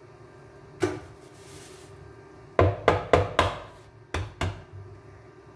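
Eggs being cracked against the edge of a mixing dish: one sharp knock, then a quick run of four knocks, then two more.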